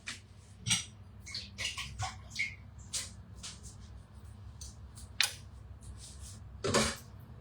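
Irregular light clicks and taps, a dozen or so spread over several seconds, the sharpest about five and seven seconds in, over a faint low hum.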